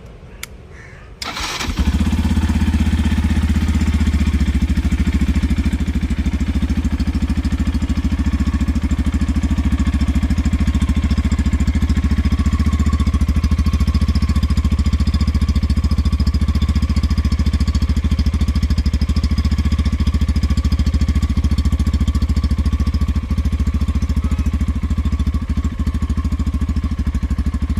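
Yamaha FZ V3's single-cylinder engine through its stock exhaust, starting about a second in and then idling steadily.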